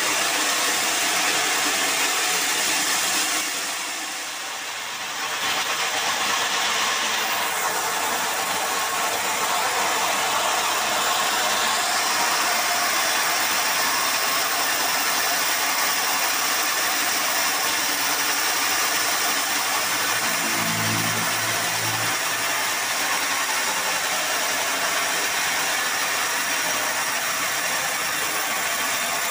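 Band sawmill running, its blade cutting through a hard acacia log with a steady, hissing noise. It goes briefly quieter about four seconds in, and a short low hum sounds about twenty-one seconds in.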